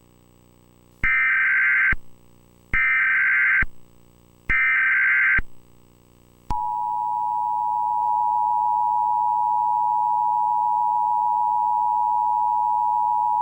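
Emergency Alert System test tones: three short SAME header data bursts, each just under a second long, then about a second later the steady two-tone attention signal begins and holds. A faint low hum lies underneath.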